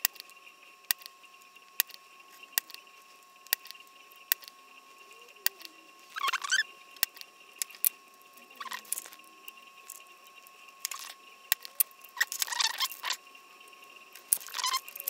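Desoldering by hand: a run of sharp separate clicks and several short scratchy bursts from a spring-loaded desoldering pump and the circuit board being handled against the bench mat. A faint steady high tone sits underneath.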